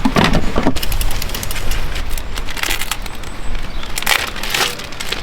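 Protective plastic and foam packaging crinkling and tearing as it is pulled off a new bike: an irregular run of close, crackly rustles and snaps.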